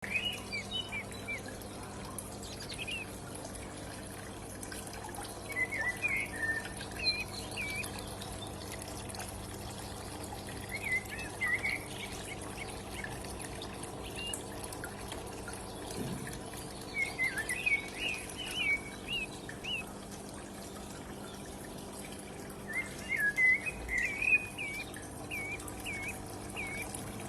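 A small bird chirping in short runs of quick, bent chirps, about five runs spread through the stretch, over a steady trickle of water and a constant low hum.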